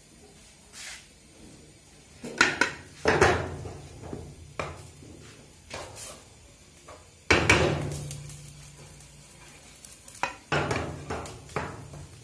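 Wooden spatula scraping and knocking against a ceramic-coated frying pan as egg fried rice is stirred and tossed, with a light sizzle. The strokes come in irregular bursts; the loudest fall about two, three and seven seconds in.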